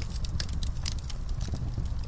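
Wood fire crackling: irregular sharp snaps and pops, several a second, over a steady low rumble of the burning.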